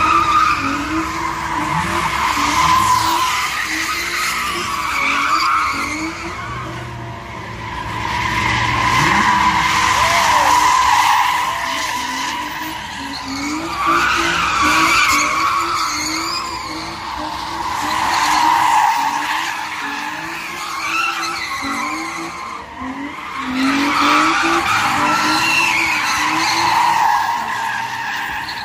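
Car tyres screeching as a car spins donuts, the squeal swelling and fading in waves every few seconds as it circles, with the engine revving underneath.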